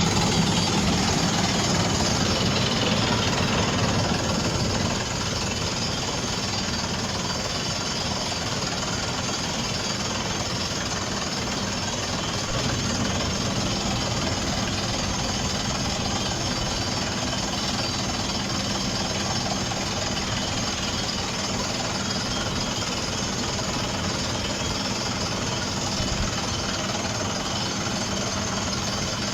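Drilling rig running, with a rapid, steady percussive hammering over its engine, a little louder for the first five seconds or so.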